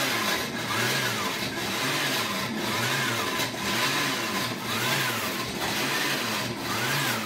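Loud Oster countertop blender running, blending a thick tahini and cucumber dressing. Its motor pitch rises and falls about every two seconds while the mix is chunky and thick.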